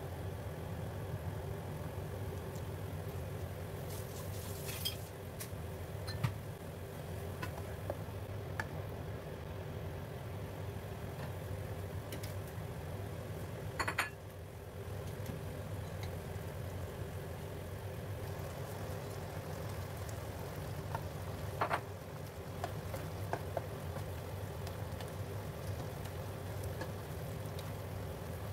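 Steady low mechanical hum, with a few light clicks of a metal spoon and a spatula against a nonstick pan of simmering tomato sauce.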